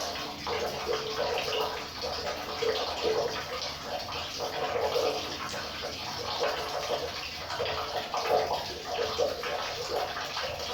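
River water flowing continuously, its rushing sound rising and falling unevenly.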